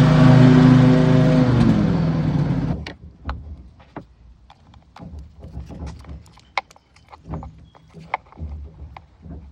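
A motor running steadily, then winding down in pitch and stopping between two and three seconds in, followed by light scattered clicks and taps of hand work.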